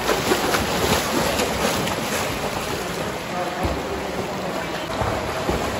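Pool water splashing and churning as swimmers kick and stroke through it: a steady wash of splashing with a few sharper splashes in the first couple of seconds.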